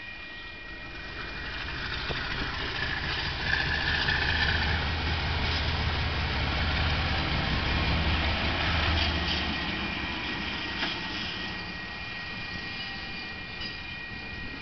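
KiwiRail DXR-class diesel-electric locomotive rolling slowly past over a level crossing, its engine building up, loudest in the middle, then fading as it moves away. A few clicks of wheels over the rails, with the level-crossing alarm ringing steadily throughout.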